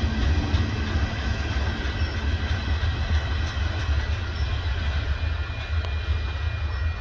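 Freight train of boxcars rolling past, a steady low rumble of steel wheels on the rails, with faint thin high tones above it.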